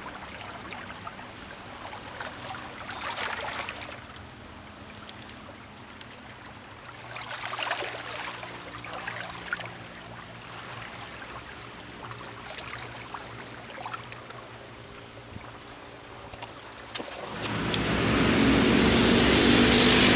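Small sea waves washing over shoreline rocks, swelling in a gentle surge every few seconds over a faint steady low hum. About 17 seconds in a much louder steady engine drone comes in and holds.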